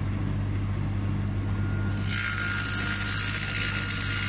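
Table saw running with its dado cutter buried in a wooden sacrificial fence, giving a steady motor hum. About two seconds in, the cutter starts cutting into the edge of an ash board, adding a loud hiss over the hum.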